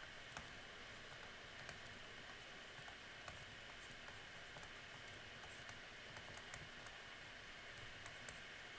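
Faint, irregular clicks of a computer keyboard being typed on, over a steady low hiss.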